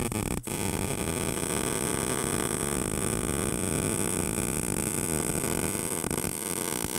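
MIG wire-feed welder arc crackling steadily while running a continuous bead over tack welds on rebar, with a brief break in the arc about half a second in.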